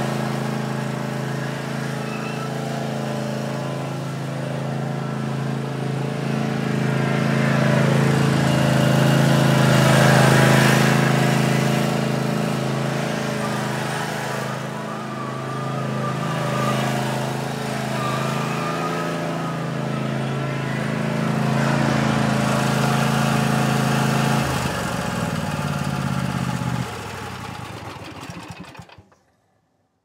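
Zero-turn lawn mower's engine running steadily as the mower drives around with its blades disengaged, growing louder about a third of the way in. Near the end the engine note drops in pitch and level in two steps, then dies away to silence.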